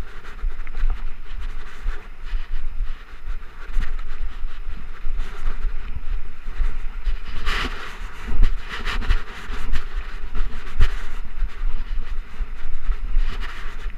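2013 Trek Rumblefish Pro mountain bike ridden fast over a dirt singletrack: tyres rolling on dirt and the bike rattling over bumps, with a steady wind rumble on the chest-mounted camera. A louder rush of noise about seven and a half seconds in.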